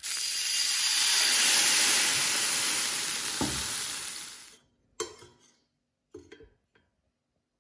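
Barbera wine hitting a hot, used pan and sizzling loudly as it deglazes it. The sizzle starts abruptly and cuts off after about four and a half seconds, followed by a few light knocks.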